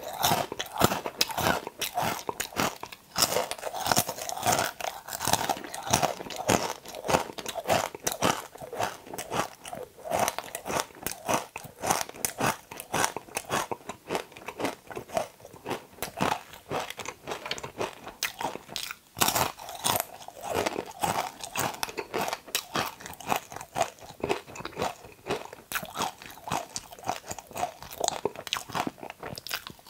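Close-miked crunching and chewing of okra pods: a dense, continuous run of crisp bites and chews.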